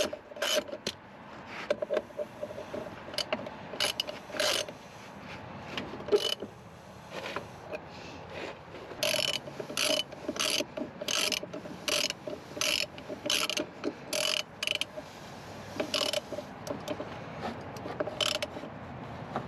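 Hand ratchet clicking in repeated strokes as the brake caliper bolts are run down, with a short lull about halfway through.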